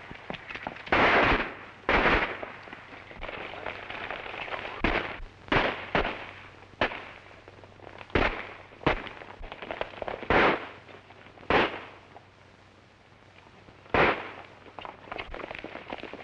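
Gunshots in a western-film holdup, about eleven sharp shots fired at irregular intervals, over the continuous clatter of galloping horses. The shots thin out to a lull before a last one about fourteen seconds in.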